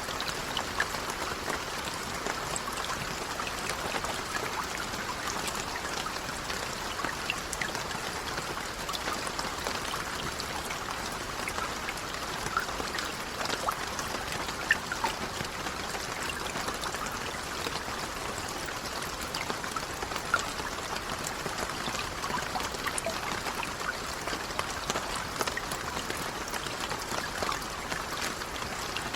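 Light rain falling steadily, a soft even patter dotted with many small, distinct drop ticks.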